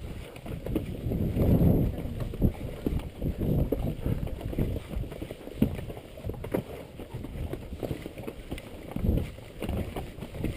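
Strong gusty wind buffeting the microphone in low rumbling surges, heaviest a second or two in, with the sharp clops of mule hooves on the rocky trail.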